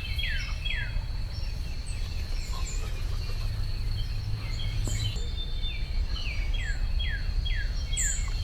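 Songbirds singing outdoors: one bird repeats a series of down-slurred whistles, three near the start and four or five more late on, among other scattered chirps. A low steady rumble runs underneath.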